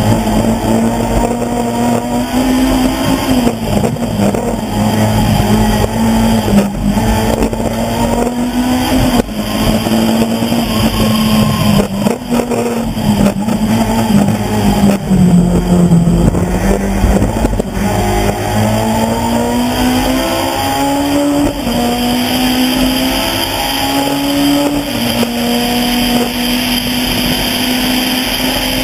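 Honda Civic Type-R rally car's four-cylinder engine pulling hard on a stage, revs rising and falling with gear changes and lifts for corners. The pitch sags about halfway through, then climbs steadily a few seconds later.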